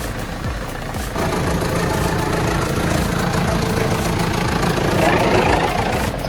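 A machine's engine running steadily, getting louder about a second in and swelling again near the end.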